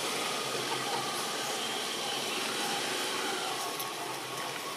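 Steady outdoor background hiss, dense and even, with a few faint short tones over it.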